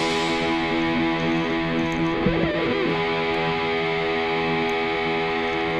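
Background music led by electric guitar, holding a long sustained chord at an even level.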